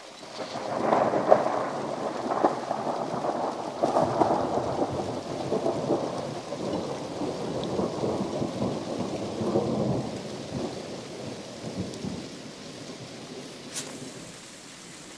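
A long roll of thunder that swells about a second in, rumbles on with sharper cracks for several seconds, then dies away over the last few seconds, with rain falling.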